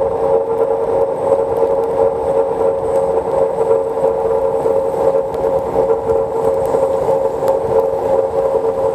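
Xiaomi Mijia M365 electric scooter riding steadily at about 25 km/h on a wet street: a steady mid-pitched whine over an even rushing noise of tyres and air.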